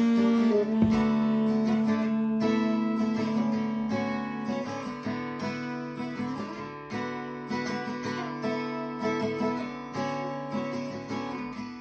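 Acoustic guitar strumming chords in an even rhythm, with a long held melody note over it for the first couple of seconds.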